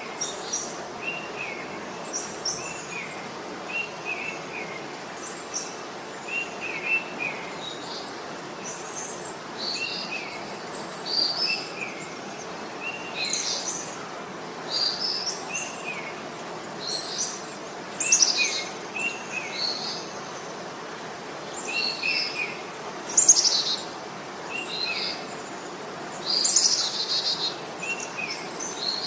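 Several birds singing and calling: a short, repeated chirp comes about once a second, with higher chirps and trills from other birds over it, a few of them louder.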